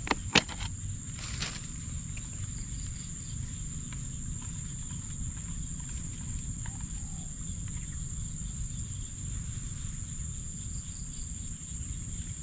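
Insects droning with one steady high-pitched tone that never lets up. A couple of sharp clicks sound at the very start.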